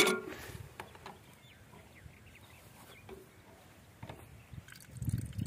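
A single sharp metallic click of a spanner on a stationary single-cylinder diesel engine, then a quiet stretch of faint handling, with scattered soft knocks near the end as the men work the fitting.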